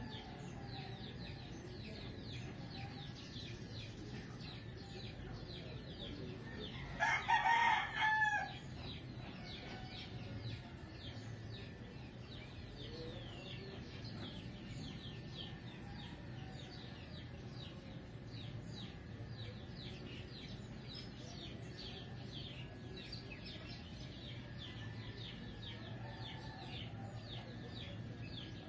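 A rooster crowing once, about seven seconds in, in two parts that fall in pitch at the end. Quick high chirping goes on underneath throughout.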